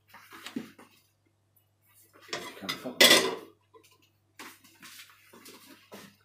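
Metal spoon scraping and clinking against a stainless steel wok as chili paste is stirred, in short irregular strokes with the loudest clatter about three seconds in.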